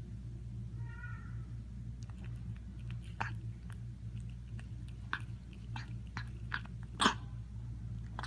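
A cat gives one short mew, then chews and crunches its food with scattered sharp clicks, one louder click near the end.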